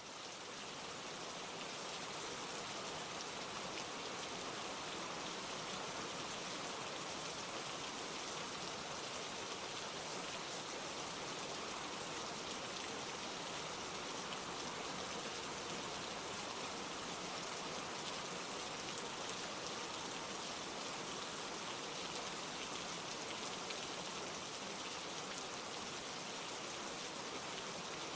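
Steady rain falling, a dense even patter with no let-up, fading in over the first couple of seconds.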